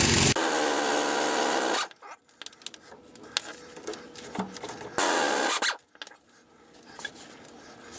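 Pneumatic impact wrench hammering the front leaf-spring U-bolt nuts loose. It runs for about a second and a half, and again briefly about five seconds in, with light metal clinks in between.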